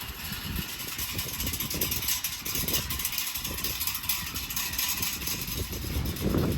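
Wind buffeting the microphone: an irregular low rumble with a steady hiss, rising into a stronger gust near the end.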